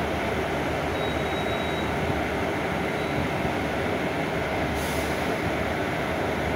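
Interior of a Mercedes-Benz O500U city bus under way: steady diesel engine drone mixed with road and body noise. A short hiss comes about five seconds in.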